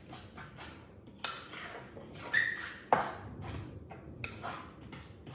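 A utensil stirring thick, sticky brownie batter in a mixing bowl: quick rhythmic scraping strokes, about three or four a second, with a few sharper knocks against the bowl, one of them briefly ringing.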